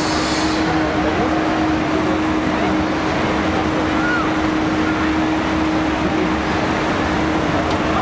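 Busy city-square ambience: a steady din of traffic and crowd chatter, with a constant hum running under it.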